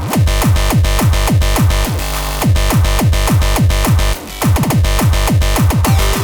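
Electronic dance music from a DJ mix: a fast, pounding techno kick drum, about four beats a second, under synthesizer layers. The kick drops out for about half a second around two seconds in and again briefly about four seconds in.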